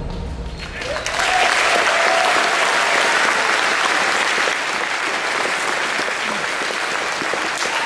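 A large audience applauding, the clapping rising in from about a second in as the demo's soundtrack fades out.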